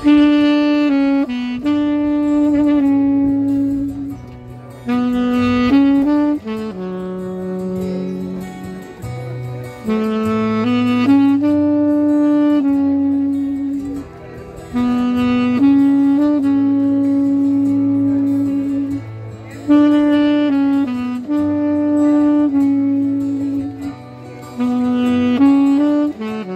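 Saxophone playing a slow melody in sustained notes, phrase after phrase, with short breaths between phrases. A low bass line accompanies it underneath.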